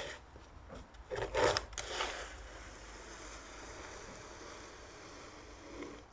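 Plastic shovel scraping over straw-strewn ground: two heavier scrapes in the first two seconds, then a quieter steady scraping as it is dragged along.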